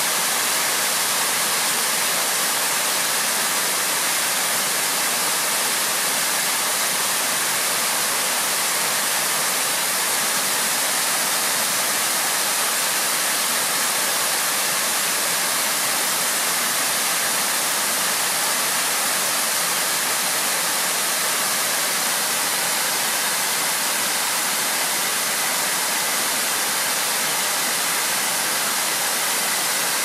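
Waterfall pouring as a wide curtain over a stone wall and splashing onto rocks below: a steady, even rush of water, heaviest in the hiss, cutting in suddenly at the start.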